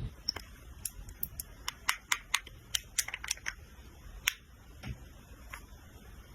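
A run of small, sharp clicks and taps, most of them packed between one and three and a half seconds in, with a few more spaced out after. These are makeup packaging and tools being handled, such as lids and compacts clicking.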